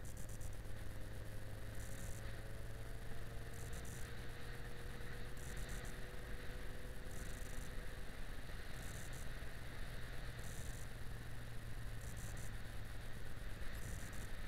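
Yamaha XJ6 Diversion's 600 cc inline-four engine running steadily while riding, under a constant low drone of wind and road noise.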